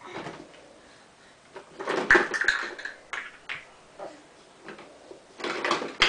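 Plastic toy pots, plates and cups clattering and knocking together as they are rummaged in and pulled out of a toy kitchen cupboard, in irregular bursts with the busiest clatter about two seconds in and again near the end.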